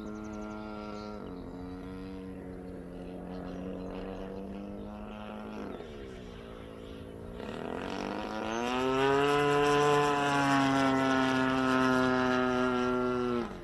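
DLE-35 single-cylinder two-stroke gas engine of an RC model airplane running in flight, a steady buzzing note with a propeller. Its pitch drops about a second in, dips lower around six seconds, then climbs and grows louder from about eight seconds before cutting off suddenly near the end.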